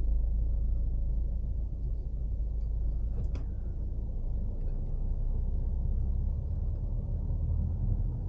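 Low, steady rumble of a Ford car's engine and tyres heard from inside the cabin as it pulls away and gets under way, with one brief click about three seconds in.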